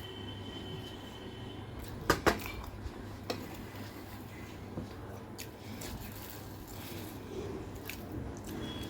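Quiet eating sounds close to the microphone: a few sharp clicks and taps of dishware or cutlery against a plate, about two, three and five seconds in, over a low steady hum.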